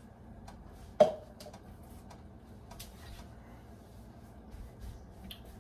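A sharp knock about a second in, with a short ring after it, among light clicks and taps of things being handled at a kitchen counter.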